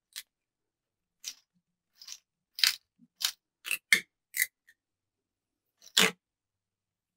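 Narrow masking tape being pulled off its roll and wound onto a rod blank: about a dozen short crackling rips and scrapes. They come bunched together in the middle and one more, loud one comes near the end.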